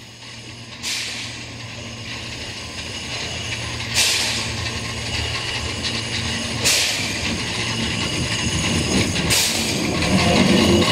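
Small steam tank locomotive moving slowly: four well-spaced exhaust chuffs, each a sharp burst of hiss, about three seconds apart over a low steady hum. It grows louder as it comes closer, with the rumble of its wheels and running gear near the end.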